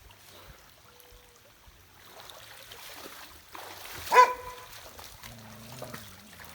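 Water trickling and sloshing, with a single short, loud bark from a dog about four seconds in.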